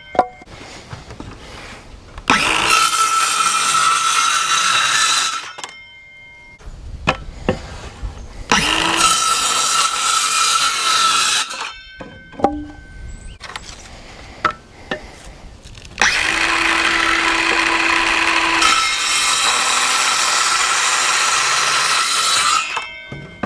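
Power saw cutting wooden boards in three separate cuts, each a few seconds of steady motor whine and cutting noise, the last one the longest. Between the cuts there are clicks and knocks as the boards are handled.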